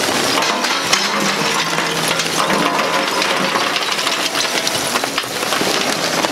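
Lump charcoal pouring from a paper bag into the metal hopper of a Masterbuilt Gravity Series 560 smoker: a continuous clatter of chunks tumbling and clinking against each other and the hopper.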